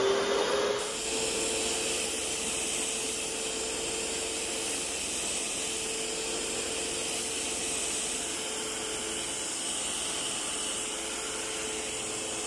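Electric stand mixer running steadily at one speed, its motor giving a constant hum as the beaters whip cream and cream cheese icing in a stainless steel bowl.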